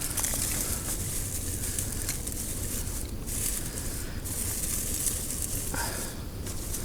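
Wood campfire burning, a steady hiss with scattered faint crackles.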